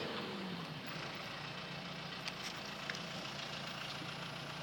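An engine running steadily at a low, even hum, with a couple of faint clicks about two and three seconds in.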